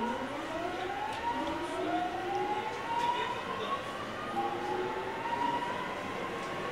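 Mitsubishi GTO VVVF inverter and traction motors of a JR 209-500 series train accelerating. The whine climbs in pitch in several stepped glides, jumping to a new set of tones about a second in and again around four seconds, over the running noise of the train.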